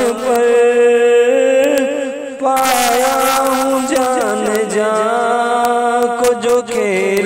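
A voice singing an Urdu Sufi devotional kalam in long, drawn-out, ornamented notes without clear words, with a short dip in loudness about two and a half seconds in.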